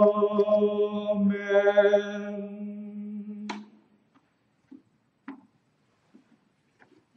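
A man singing a long, held "Amen" at the close of a hymn, the note shifting on the second syllable about a second in and breaking off about three and a half seconds in. A few light knocks and clicks follow as a book is handled and set down at the lectern.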